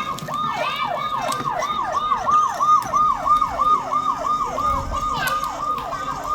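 Electronic police siren on a fast repeating cycle: each wail falls in pitch and snaps back up, about three and a half times a second.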